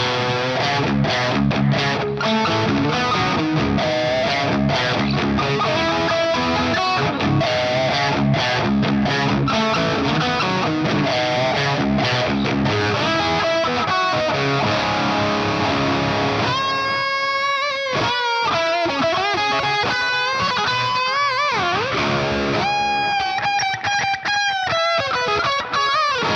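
Frankenstrat-replica electric guitar being played: fast, dense riffing, then from about two-thirds of the way in, single-note lines with string bends and vibrato, a wide swoop in pitch, and long held notes near the end.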